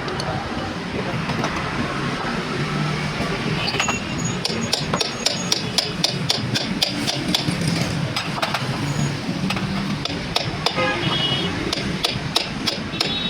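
Hand work on metal brake parts: repeated sharp metallic clicks and clinks, several ringing briefly, coming thick and fast from about four seconds in, over a steady background of vehicle noise and voices.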